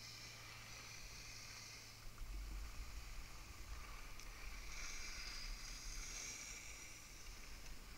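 Faint hiss of skis sliding over snow, swelling and fading with the turns, with low wind rumble on the microphone from about two seconds in.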